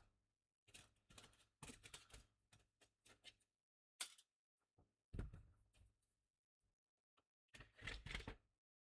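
Faint, irregular rustling and clatter of objects being moved and handled, with a sharp click about four seconds in and a dull thud just after five seconds, in a small room.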